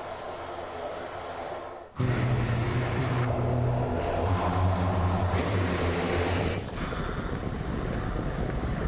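Honda engine sounds in edited clips: a quieter running sound, then a sudden cut about two seconds in to a louder engine holding steady revs that shift in steps. There is another cut near the end.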